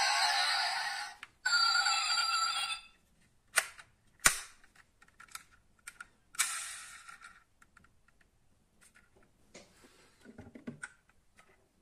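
Sharp plastic-and-metal clicks and clacks of a die-cast model car being handled: its tailgate and doors snapping shut, and a soft thud near the end as a model is set down on the table. Background music plays for the first few seconds, then stops.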